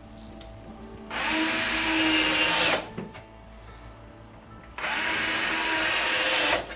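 Cordless drill/driver driving screws through a plastic corner brace into the cabinet. It runs in two bursts of just under two seconds each: the motor whine rises quickly as it spins up, holds steady, then cuts off abruptly.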